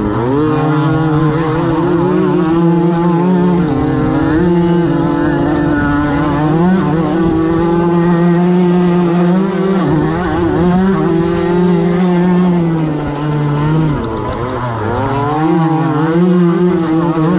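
Small two-stroke moped engine heard from on board, running at high revs under race throttle, its pitch stepping and wavering with throttle and shifts. It eases off briefly about fourteen seconds in, then winds back up.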